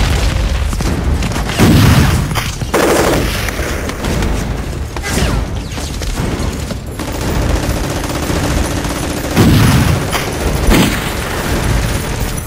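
Battle sound effects: continuous rifle and machine-gun fire, with heavy explosions about two seconds in and again a few seconds before the end.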